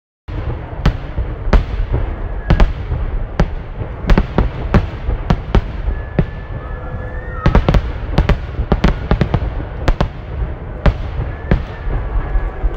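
Aerial firework shells bursting: an irregular string of sharp, loud bangs over a continuous low rumble, coming thickest about halfway through.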